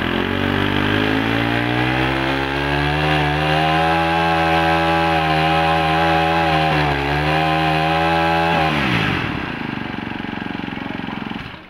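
Honda GX25 four-stroke brush-cutter engine revving: its pitch climbs over the first few seconds and holds high, with a brief dip about seven seconds in. The throttle is then released just under nine seconds in, and the engine falls back to a quieter, lower running speed.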